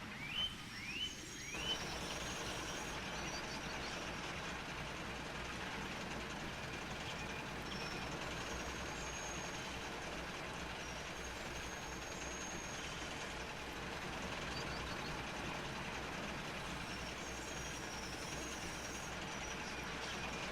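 A steam locomotive running steadily, a continuous rumble of engine and wheels. Three short rising chirps come in the first two seconds, and faint high thin tones come and go.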